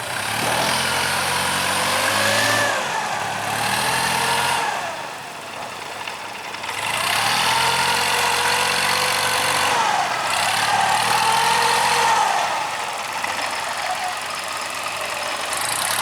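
A motor engine running, its revs rising and falling several times as the load or throttle changes.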